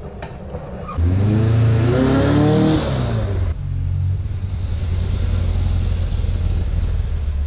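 Air-cooled VW bus's 1900 cc flat-four on dual Weber carburettors accelerating as the bus drives past, its engine note rising for about two seconds. The sound breaks off abruptly, then a steadier engine rumble carries on.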